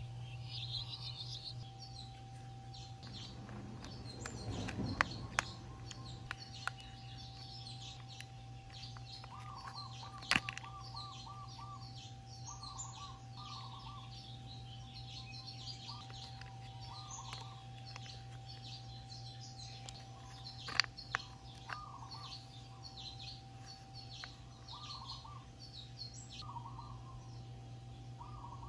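Small birds chirping and trilling throughout, over a steady low hum, with a few sharp clicks from the plastic latch parts and a small screwdriver being handled.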